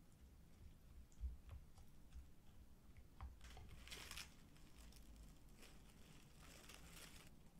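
Faint crinkling and tearing of thin plastic film being peeled off a tube of soft tofu, in two short bouts, after a soft thump and a few light clicks about a second in.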